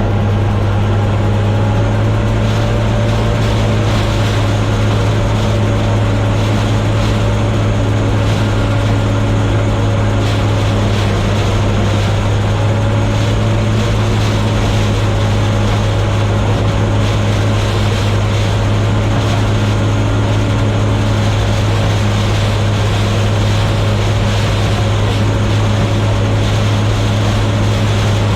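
Gleaner combine running steadily while shelling corn: a constant, loud engine and machinery drone with an unchanging low hum.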